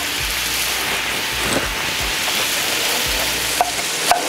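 Ground beef sizzling on a flat-top griddle, a steady hiss, with two sharp knife chops through a head of lettuce onto a wooden cutting board near the end.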